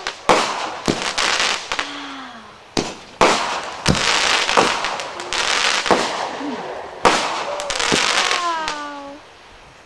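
Consumer aerial fireworks bursting: a string of sharp bangs, several about a second apart, each trailed by crackling.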